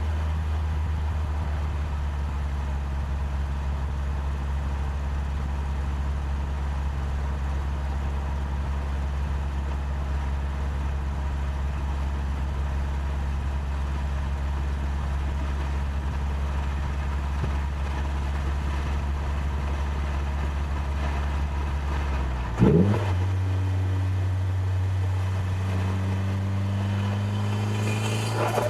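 Nissan Silvia S14a's turbocharged four-cylinder engine droning at steady revs while the car is driven. About 23 seconds in there is a short loud bump and the engine note steps up to a higher, steady pitch, as in a gear change.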